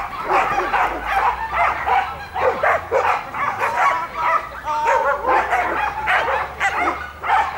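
Belgian Tervuren barking over and over, short barks about two or three a second without a break.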